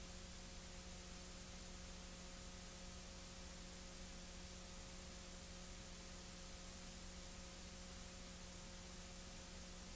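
Steady hiss with a low electrical hum and no other sound: the background noise of an old film transfer.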